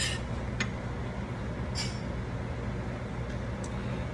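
Steady low hum of background noise in a small room, with a few short, light clicks.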